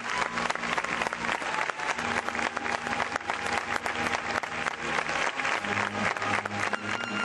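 Crowd applauding, a dense run of clapping, with low steady band tones underneath.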